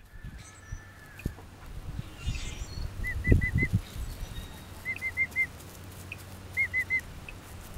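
Emu chicks peeping: three short runs of three to four quick whistled chirps, spaced about two seconds apart. There is a low thump about three seconds in.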